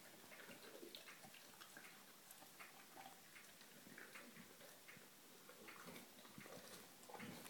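Faint, irregular small clicks and ticks of a Greater Swiss Mountain Dog mouthing and chewing a rubber Kong toy.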